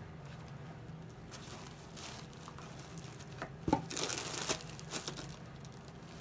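Packing paper crinkling and rustling as it is handled during unboxing, in bursts that are loudest a little past the middle, with one light knock just before the loudest part.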